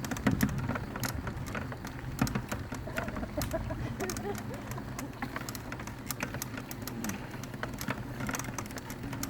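Mountain bike rolling over a rough trail: a dense run of irregular clicks and rattles over a steady low rumble.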